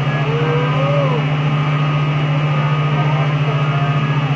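Steady low hum of water-pumping machinery running without a break, its level pulsing evenly.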